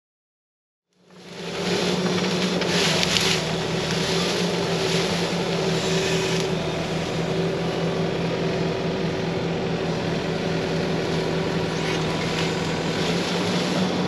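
Diesel engine of a heavy machine running at a steady speed, fading in about a second in.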